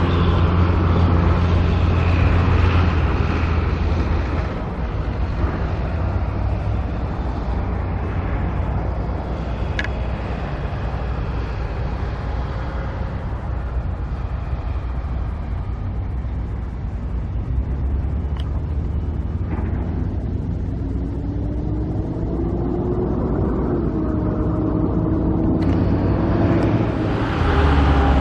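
Car running, with a steady low rumble of engine and road noise; about twenty seconds in, an engine note rises in pitch as the car speeds up.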